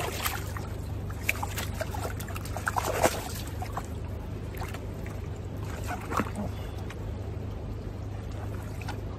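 Water splashing and dripping as a wet mesh keepnet is worked in a flowing river, with a few sharper splashes about a second, three seconds and six seconds in, over the steady rush of the river.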